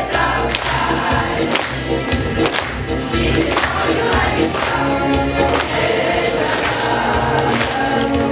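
A group of voices singing a song over a backing track, with a drum beat striking about once a second.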